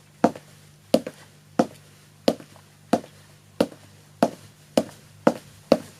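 Foley footsteps performed on a plain surface: about ten steps at a steady walking pace, some landing with a small heel-then-toe double tap.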